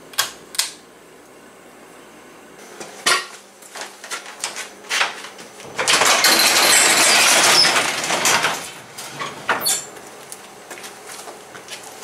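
A light's pull-chain switch clicking twice, a few knocks, then a metal sectional garage door rolling open with a loud metallic rattle for about three seconds, the loudest sound here.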